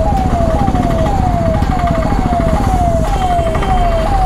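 Ambulance siren sounding a repeating falling sweep, about two cycles a second, over a steady low rumble of traffic.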